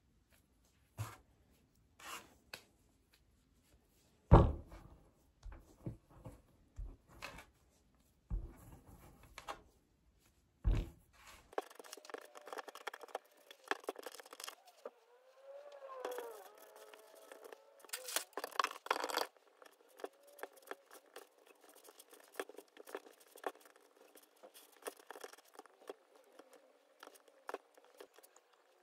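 Hands working a lump of clay: knocks and thumps as it is pressed and set down on the table, then a denser run of small pats, taps and scraping as a clay pot is shaped by hand. The loudest thump comes about four seconds in.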